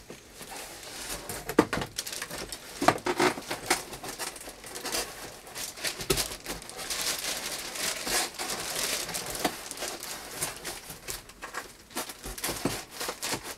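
Plastic wrapping crinkling and cardboard rustling and scraping as parts are worked out of a cardboard shipping box, with two sharper knocks about one and a half and three seconds in.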